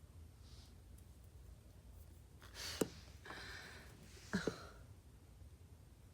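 A woman hiccuping twice, about a second and a half apart, each a sudden catch in her breath with a short squeak of voice, over quiet room tone.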